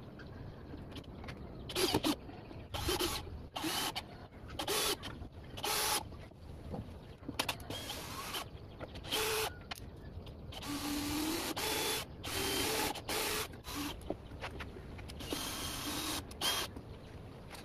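Cordless drill-driver running in about ten short bursts, with one longer run around the middle, driving screws into a plywood drawer.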